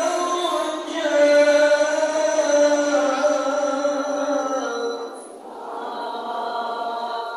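Male Quran reciter (qori) chanting in the melodic tilawah style into a handheld microphone, holding long ornamented notes. The phrase dips about five seconds in, and a softer closing phrase ends near the end.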